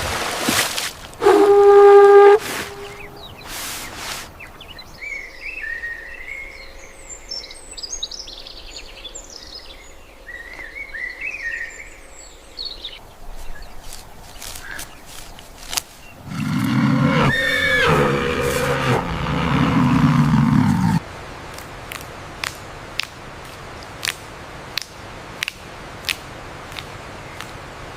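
Recorded animal calls, one after another: a short pitched call, several seconds of bird chirping, then a louder, lower call lasting about four seconds, followed by scattered sharp clicks.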